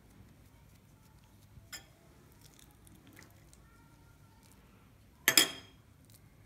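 Faint soft squishing of dough being pinched and shaped by hand, with a small click near two seconds in. About five seconds in comes one sharp clink with a short ring, as a metal spoon knocks against the ceramic bowl of filling.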